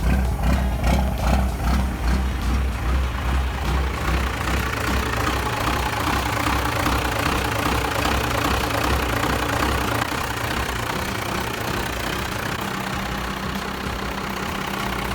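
Vehicle engine running steadily, with a wide hiss of road and wind noise that swells from about four seconds in.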